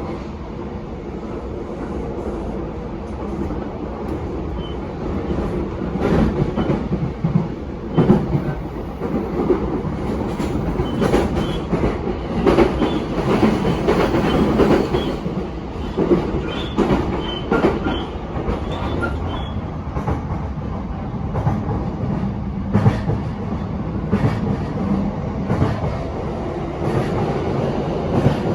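Onboard running sound of a JR East E233-7000 series electric train, heard from inside the car: a steady rumble of wheels on rail with frequent knocks and clatter over rail joints, heavier through the middle stretch. It is running over freight-line track, which is why the ride is rough.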